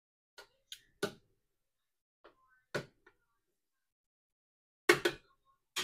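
Metal kitchen tongs clacking and knocking against a plastic blender jar as boiled tomatoes are dropped in. The knocks are sharp and scattered, and the loudest pair comes near the end.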